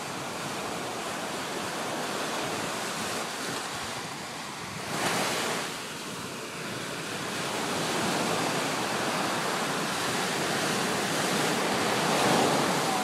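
Small surf breaking and washing up on a sandy beach, with wind buffeting the microphone. There is a brief louder rush about five seconds in.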